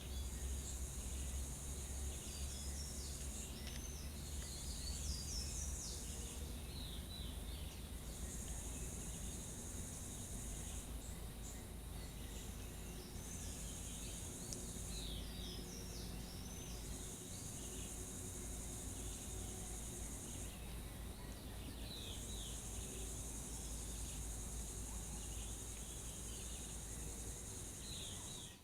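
Forest ambience: a high insect buzz that switches on and off in spells of a few seconds, with scattered short high chirps and a low steady rumble underneath.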